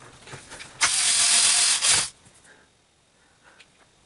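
A small electric screwdriver runs for about a second, driving a screw in, after a few light handling clicks.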